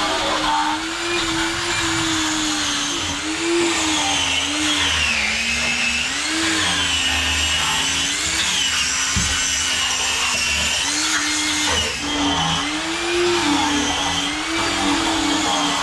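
A power tool's motor whining without a break, its pitch dipping and rising every second or two as the load on it changes.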